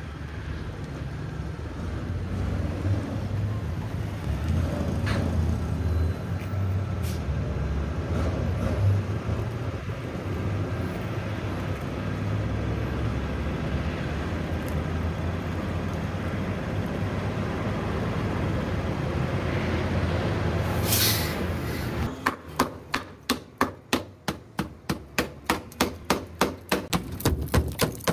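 A bus engine running with a steady low rumble, a short hiss of released air near the end, and then a quick run of sharp knocks, about four a second, as the rusted-through rear quarter panel is hammered.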